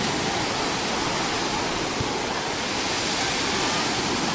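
Steady rushing noise of sea surf on the beach, even and unbroken, with two faint knocks, one at the start and one about two seconds in.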